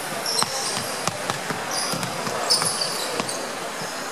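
Basketballs bouncing on a wooden gym floor, irregular knocks in a large hall, with several short high sneaker squeaks on the court.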